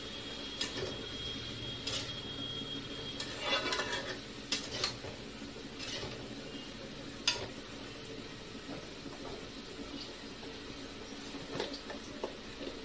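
Metal spatula scraping and clinking against an iron kadai as leafy greens are stirred and fried, over a steady sizzle. The knocks come irregularly, the loudest about seven seconds in.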